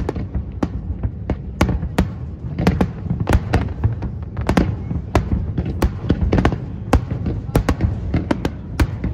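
Aerial fireworks shells bursting in rapid, irregular succession, about two or three sharp bangs a second, over a continuous low rumble from the ongoing barrage.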